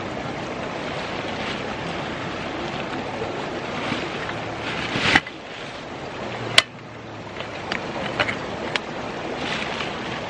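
Steady rush of a flowing river. Over it come a few sharp clicks and knocks of camping gear being handled, the loudest just past halfway.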